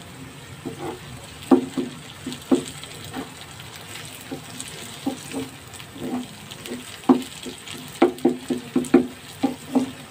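Wooden spatula stirring and scraping chopped onions and tomatoes around a non-stick frying pan, over a steady low sizzle of frying. The knocks and scrapes come a few at a time at first, then in a quick run in the last few seconds.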